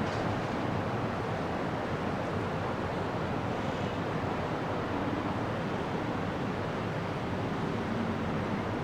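Steady rushing outdoor noise, even throughout, with no firework bursts or other distinct events.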